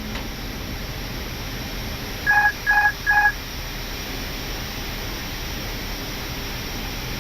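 Three short, identical electronic beeps, evenly spaced, from an Airbus A319 flight-deck alert about two seconds in, over the steady air and avionics hiss of the cockpit on final approach.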